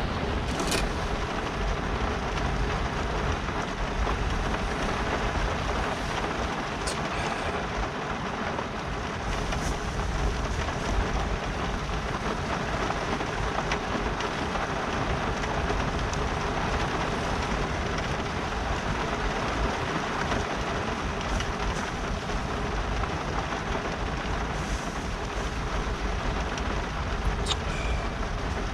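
Heavy rain falling steadily on the car and its tarp, a dense even hiss over a low rumble, with a few sharper drop hits.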